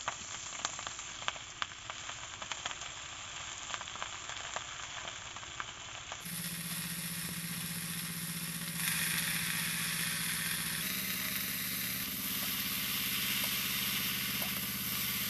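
Leafy greens with sliced potato and brinjal sizzling in hot oil in a metal karai. For the first several seconds a spatula ticks and scrapes against the pan as the vegetables are stirred. About six seconds in the sizzle turns louder and steadier.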